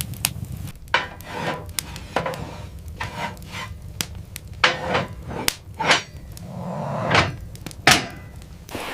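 Irregular knocks and clicks of wood, mixed with rustling and rubbing, scattered unevenly over several seconds.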